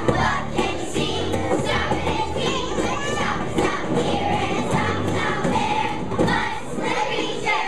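A group of young children singing together as a choir over accompaniment music with a steady beat.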